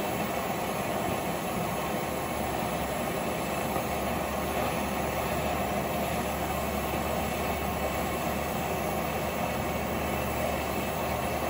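Oxy-fuel torch burning steadily, a continuous even hiss.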